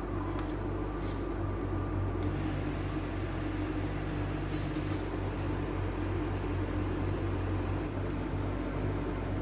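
Steady low hum of a kitchen appliance, such as a cooktop or extractor fan, running under a pot of simmering broth. A few faint clinks of a metal ladle or utensil against the stockpot come about half a second, a second and four and a half seconds in.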